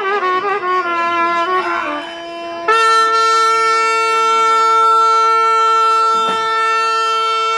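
Trumpet playing a quick run of notes that drops away briefly about two seconds in, then holds one long, steady note.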